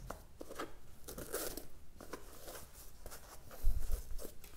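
Orange cardboard gift box and its ribbon being handled and untied: light rustling and scraping, with a dull thump about three and a half seconds in.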